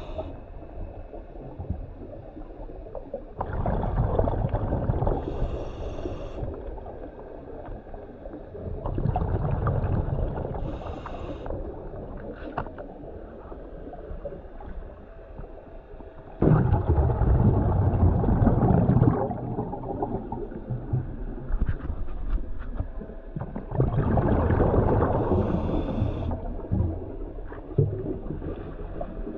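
Underwater recording of a scuba diver's regulator breathing: exhaled bubbles rush and gurgle in four long bursts, about six to seven seconds apart, with quieter stretches between.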